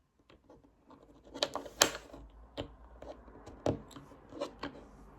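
Packaging of a boxed collectible figure being handled and opened, starting about a second in: irregular crinkles, rustles and small clicks.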